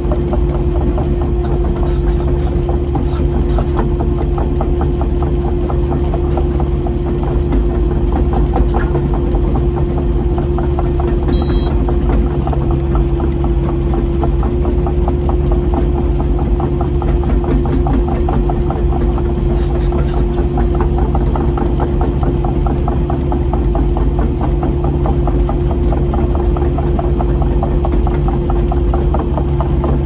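Kubota KX080 excavator's diesel engine running steadily, with a constant whine over the engine note.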